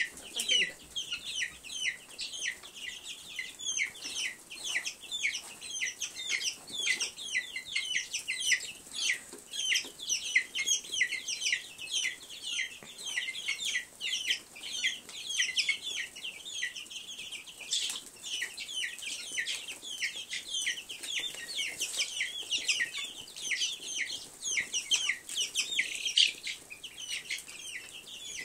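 A brood of chicks and ducklings peeping nonstop: many short, high, downward-sliding peeps overlapping, several each second.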